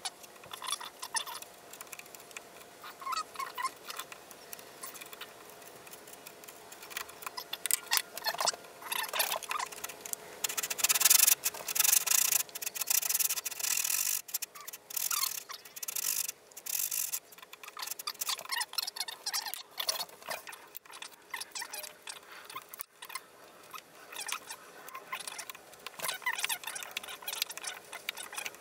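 Hand woodworking on a board's edge: a chisel scraping and paring the wood in short strokes, with a dovetail saw cutting back and forth through the middle stretch, the loudest part. The chisel goes back to chopping and paring near the end.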